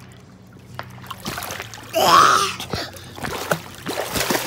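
Pool water splashing and sloshing close to the microphone, with the loudest splash about two seconds in and more splashing near the end.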